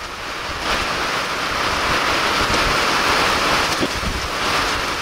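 Heavy rain coming down, a steady loud hiss that swells about a second in.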